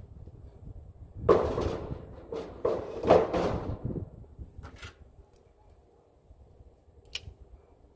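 Handling noise: two rough scraping, rustling sounds, one starting about a second in and a longer one just after, then a faint tick and, near the end, a single sharp click.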